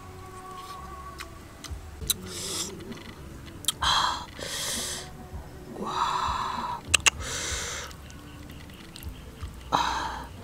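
A person eating with their mouth: sharp lip-smacking clicks and several short breathy puffs of air between bites of chewing.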